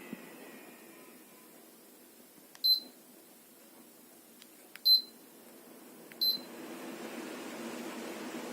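An air purifier's control-panel beeper sounding three short, high electronic beeps a second or two apart, as its buttons are pressed. After the last beep a steady whirring noise rises, as of its fan starting.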